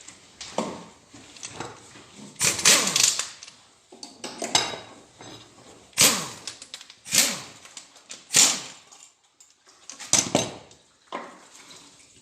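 Wrenches and small metal engine parts clinking and clattering during a G4NA engine teardown, as the oil pickup is unbolted and handled. There are about six separate clanks, each with a short ringing tail.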